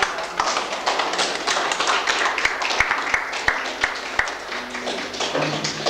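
A roomful of guests clapping, starting suddenly and thinning out near the end as voices come back.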